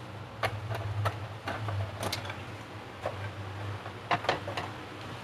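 Light clicks and knocks, about a dozen spread irregularly, from hands working on an amplifier as it is readied for switch-on after a fuse change, over an intermittent low hum.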